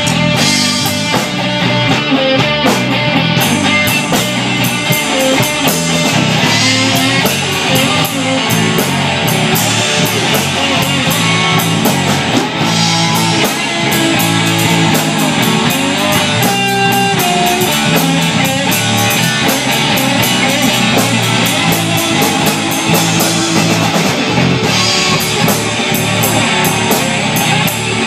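Live blues-rock band playing an instrumental passage: an amplified resonator guitar over electric bass and a drum kit, loud and steady throughout.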